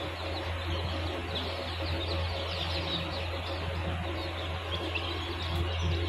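A flock of young Japanese Shamo chicks peeping continuously, many rapid downward-sliding peeps overlapping one another, over a steady low hum.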